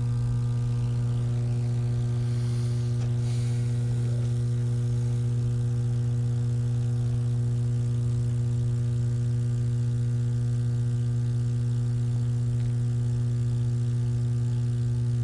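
High-voltage substation equipment humming: a steady, deep electrical drone with several fainter higher tones stacked above it.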